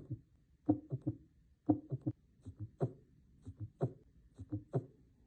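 Recorded heart sounds at about one beat a second, each beat a gallop of three thumps: the lub and dub plus an extra heart sound, the generally abnormal S3 or S4 of diastole. About two and a half seconds in, the spacing of the thumps within each beat changes.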